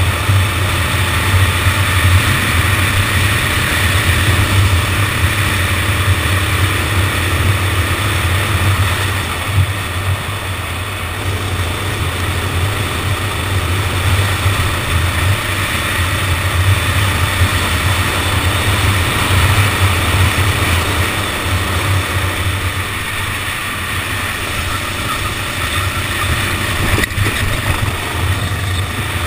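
Go-kart engine running continuously as heard from onboard the kart, a strong low engine note with a hiss of noise above it. The level dips briefly twice.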